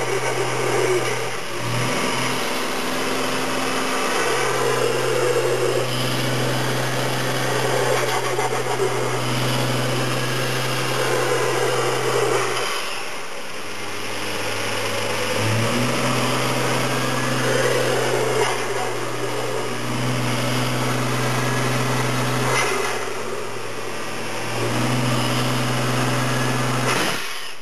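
Toyota 1JZ-GTE twin-turbo straight-six in a JZA70 Supra, revved repeatedly, about every four to six seconds. Each time the throttle closes there is turbo flutter and the Blitz blow-off valve venting.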